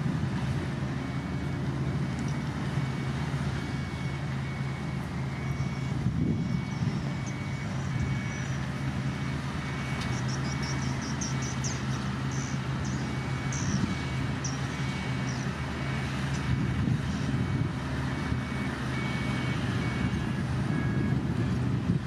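Small Komatsu crawler bulldozer's diesel engine running steadily under load while pushing dirt, with a reversing alarm beeping at a regular pace almost throughout. A run of short high chirps about ten seconds in.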